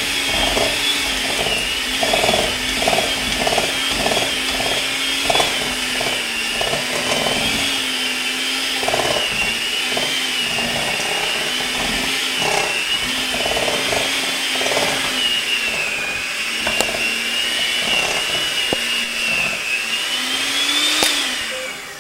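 Electric hand mixer running steadily as it beats thick cream cheese frosting in a bowl, its motor pitch wavering as the beaters work the mixture. Near the end the pitch rises briefly and the mixer switches off.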